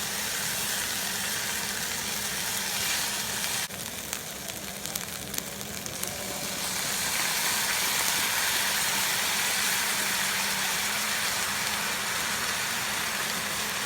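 Food sizzling in a pan over a campfire: a steady frying hiss that drops abruptly a few seconds in and builds back up after about six seconds.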